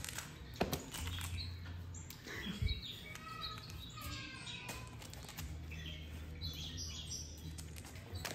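A cat leaping and playing on a laminate floor, its landings giving two sharp knocks, about half a second and two and a half seconds in, among short high chirping sounds.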